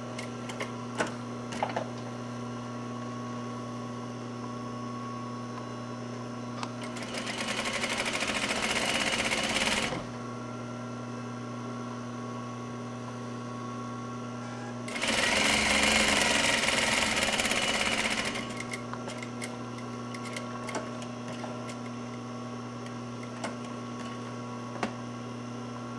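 Juki industrial sewing machine stitching a seam in two short runs of about three seconds each, one starting about seven seconds in and one about fifteen seconds in. Between the runs its motor hums steadily, with a few small clicks near the start.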